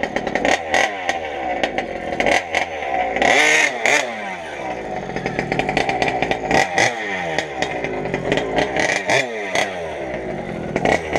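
Modified 38cc two-stroke gas engine of a large-scale RC truck running hard, its pitch repeatedly falling off and climbing again as the throttle is worked, with sharp clicks throughout.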